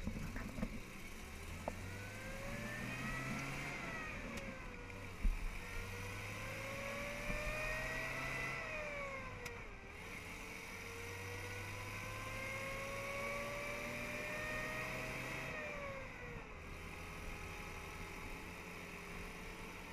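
Daimler Ferret scout car's engine and drivetrain accelerating through the gears, the whining note climbing steadily and dropping at each of three gear changes, then holding steady at cruising speed near the end. A single sharp knock about five seconds in.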